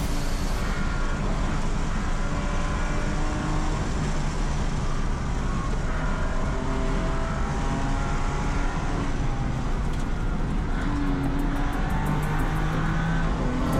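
BMW race car's engine heard from inside the cockpit under hard driving, its pitch holding and then stepping between levels, over steady road and wind noise.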